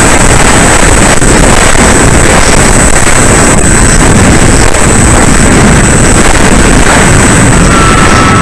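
Loud, distorted rushing noise of wind and the electric motor of a Bix 3 RC plane in flight, with a thin steady high whistle; a second, lower whistle comes in near the end.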